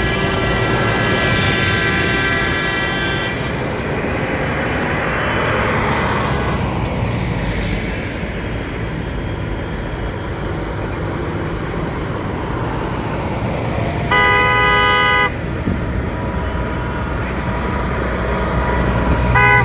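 Farm tractors driving past in a protest convoy, engines running, with horns honked in protest: a long steady horn blast at the start, another just over a second long around two-thirds of the way in, and a third beginning right at the end.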